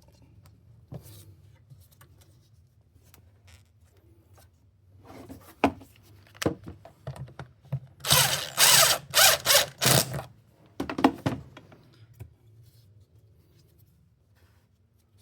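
A handheld power tool run in several short bursts, loudest about eight to ten seconds in, over a low steady hum.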